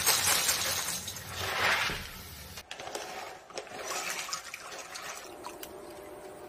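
Dried soybeans and black beans poured from plastic bags into glass mixing bowls: a dense rattling hiss of hard beans hitting glass, loudest in the first two seconds or so. After that come smaller scattered rattles and clicks, and a faint steady hum near the end.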